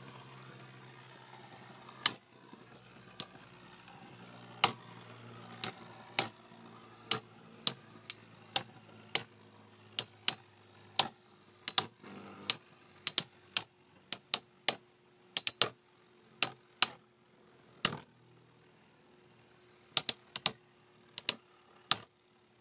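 Two metal Beyblade spinning tops, one a Hasbro Metal Fury Phantom Orion, battling in a stadium, their metal wheels clashing in sharp ringing clicks. The clicks start sparse, come about two or three a second in the middle, pause briefly, then return near the end.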